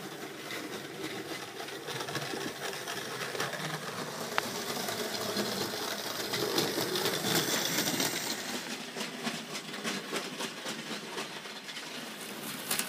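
Small Hornby GWR tank engine model locomotive running along the track: the steady whir of its electric motor and gears with fine rapid ticking of wheels on rail, a little louder midway through.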